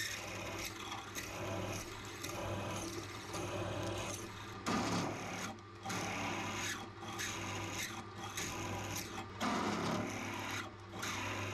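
Pillar drill running at about 1000 RPM with a twist drill boring into a steel bar: a steady motor hum under a rasping cutting noise that breaks off briefly now and then as the feed is eased and pressed again, louder about five seconds in and again near the end.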